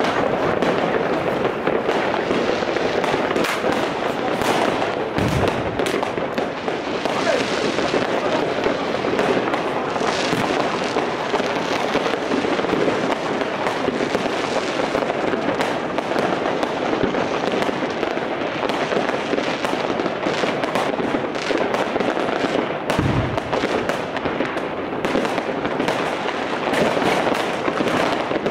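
Fireworks and firecrackers going off in a dense, unbroken barrage of bangs and crackles, with two deeper booms about five seconds in and again near twenty-three seconds.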